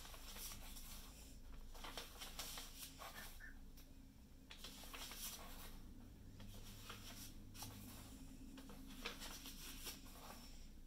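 Faint rustling of sketchbook paper pages being turned by hand, several swishes in a row as page after page is flipped.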